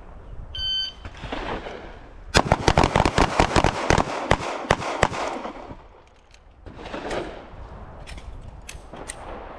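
A short electronic start beep, then handguns from a line of several shooters firing five-round strings together: a dense, overlapping run of shots for about three seconds, with a few late single shots trailing off near the end.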